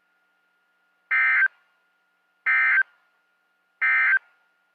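NOAA Weather Radio end-of-message (EOM) signal: three short bursts of SAME digital data tones, a buzzy two-tone warble, each about a third of a second long and spaced a little over a second apart. It marks the close of the Required Weekly Test alert.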